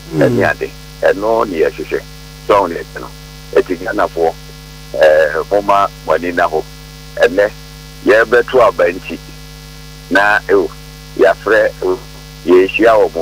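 Conversational speech, heard as a telephone-line voice, over a steady electrical mains hum, with short pauses between phrases.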